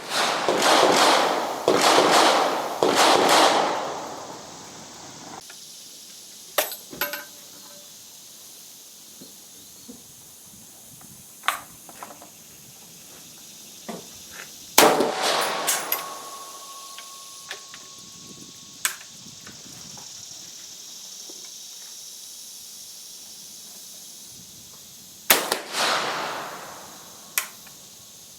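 Shots from an Austrian Werndl single-shot rifle: sharp cracks with a ringing tail, several in the first few seconds, then single shots spaced many seconds apart, with lighter clicks and knocks between them.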